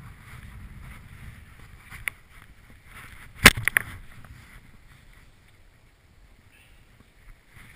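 Rustling of a skier's jacket and gloves as he moves and handles his poles, with a light click about two seconds in and a sharp knock, quickly repeated, about three and a half seconds in.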